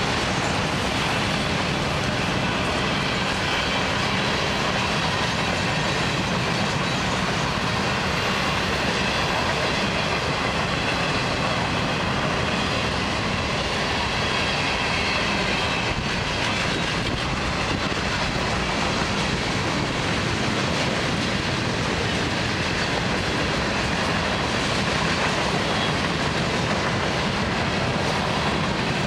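Mixed freight cars of a long Florida East Coast Railway freight train rolling past on the rails: a steady, unbroken rolling noise of wheels and car bodies with no letup.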